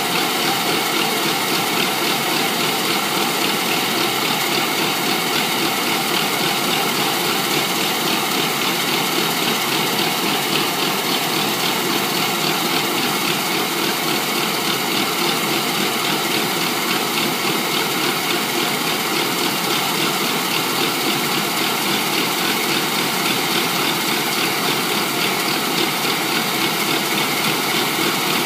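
Rice combine harvester's diesel engine and threshing machinery running steadily with an even, unbroken mechanical din.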